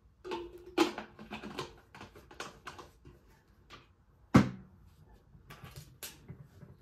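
Plastic water bottle handled and set down on a bedside table: a run of small clicks and rattles, then one sharp knock about four and a half seconds in, with a few lighter clicks after it.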